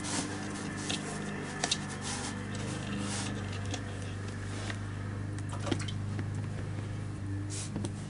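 Faint brushing and a few light taps of a watercolour brush working on paper, over a steady low hum.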